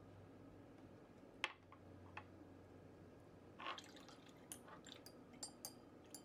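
Quiet room with a sharp click about a second and a half in and a softer one shortly after, a brief scuff near the middle, then a quick string of small light clicks and taps near the end.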